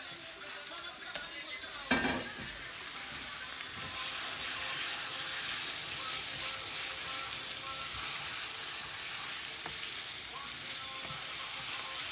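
Liver frying in hot oil in a pot, a steady sizzle that grows louder about four seconds in. A sharp knock about two seconds in.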